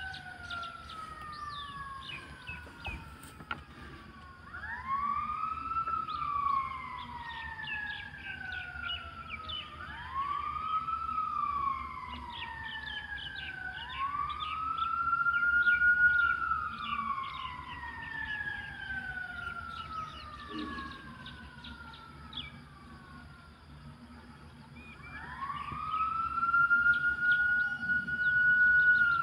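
A siren wailing in long cycles: the pitch climbs quickly, then slides slowly back down over several seconds. This happens four times, and the last cycle holds at the top near the end.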